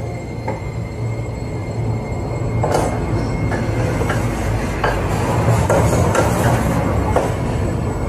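Socket ratchet wrench clicking and grinding continuously as it runs down the outer mounting bolts of a washing machine's transmission base, with a few sharper metal clicks.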